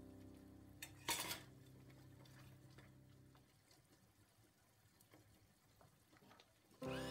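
A short metallic clatter about a second in, a utensil or small metal container striking the stainless-steel pan while seasoning goes into the tomato sauce, then a few faint scattered ticks. Held background music notes fade out under it, and the music comes back near the end.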